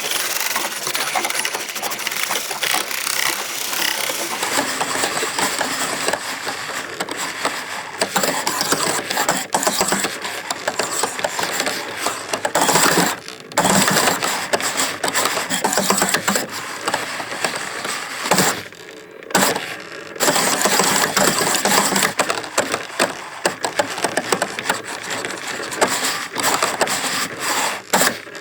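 Motorized faders on a Euphonix MC Mix control surface being driven rapidly back and forth by automation, a dense run of clattering, jittering and whining from the fader motors and carriages. The motors are aging, and some faders are only partly working. The clatter breaks off briefly about halfway through and again about two-thirds of the way in.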